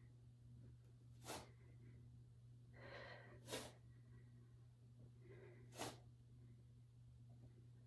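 Faint breathing of a woman holding a plank while doing alternating rows: three short, sharp exhales about two and a half seconds apart, the later two each after a softer inhale, over a low steady hum.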